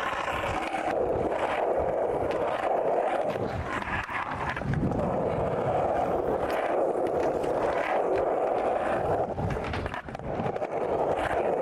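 Skateboard wheels rolling on a smooth skatepark surface, a steady rumble that drops out briefly a few times and is broken by a few sharp knocks of the board.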